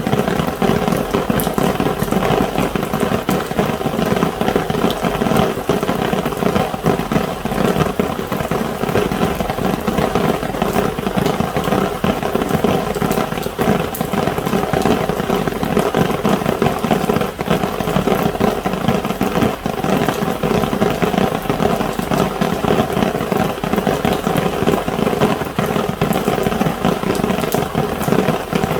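Heavy rain drumming on an umbrella canopy: a dense, steady patter of many tiny drop impacts.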